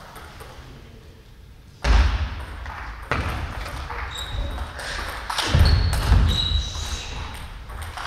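Table tennis rally starting about two seconds in: the ball clicking off bats and table, heavy footwork thuds, and several short high shoe squeaks on the wooden gym floor.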